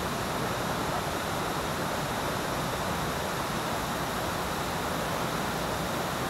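Steady rush of a waterfall and mountain stream pouring over rocks, an even unbroken noise.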